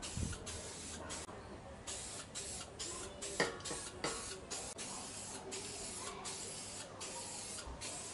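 Aerosol spray can hissing in a series of short bursts with brief pauses between them, as paint is sprayed onto a car body panel. A sharp clink about three and a half seconds in.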